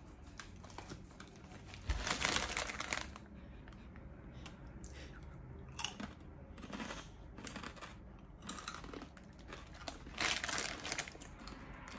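Tortrix Twist corn snack twists crunching as they are bitten and chewed, with the plastic snack bag crinkling about two seconds in and again near the end.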